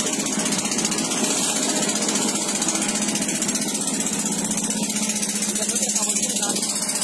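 Boat engine running steadily while under way, heard from on board the wooden passenger boat.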